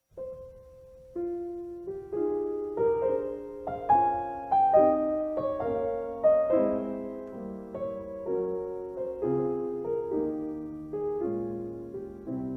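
Piano music: a slow, gentle melody of single notes and chords, each note struck and fading, starting abruptly out of silence.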